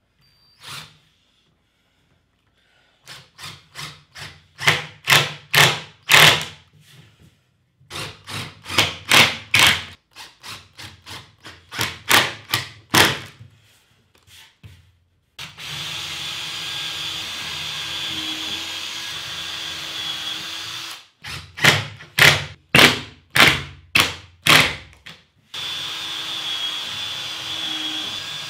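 Cordless drill-driver driving screws through a plywood panel into its timber frame: strings of short trigger bursts, about three a second, and two longer steady runs of motor whine, the first starting about halfway through and the second near the end.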